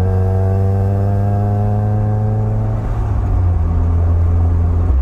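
The H23A1 four-cylinder engine of a 1996 Honda Prelude Si running under way, heard from inside the cabin with road noise: a steady engine note that drops a little in pitch about three seconds in.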